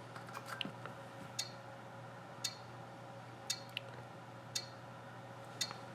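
Passive buzzer on an Arduino countdown timer giving short, sharp ticks, one each second, five in all, marking each second counted down. A few fainter clicks come just before the first tick.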